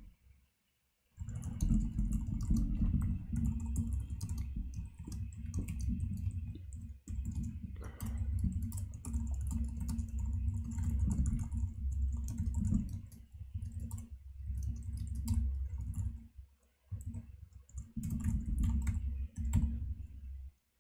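Typing on a computer keyboard in quick bursts of clicking keystrokes, each with a dull low thump. After a silent first second it runs in runs, breaking off briefly a few times.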